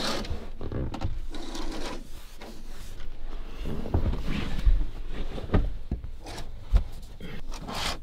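Campervan curtains and interior fittings being handled: irregular rubbing and sliding with scattered clicks and a few dull knocks.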